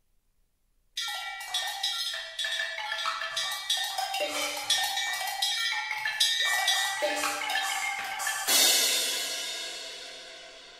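Solo percussion: a quick run of struck, ringing pitched notes starting suddenly about a second in, then a cymbal crash near the end that rings on and fades.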